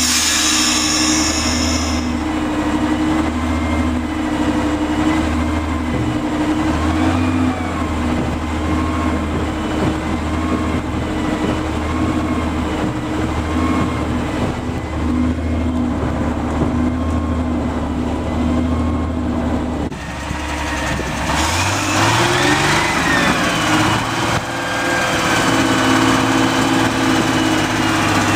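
Vintage Plymouth industrial locomotive's petrol engine running steadily under way, with a faint wavering whine above it. About 21 seconds in, the engine revs up with a rising pitch and settles at a higher speed.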